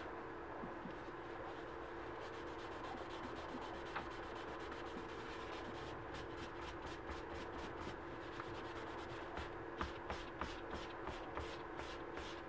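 A gloved hand and applicator rubbing leather dye onto a leather key chain, scuffing over the leather and the paper towels beneath. About halfway through the rubbing turns into quick, even strokes, about three a second.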